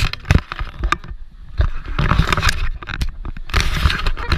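Wind buffeting and handling rumble on a handheld camera's microphone, coming in gusts with scattered rustle and clatter, easing off briefly about a second in and again about three seconds in.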